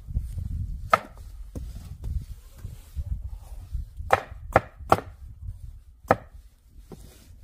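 Knife chopping on a wooden cutting board: about seven sharp, irregularly spaced strikes, several of them close together near the middle, over a steady low rumble.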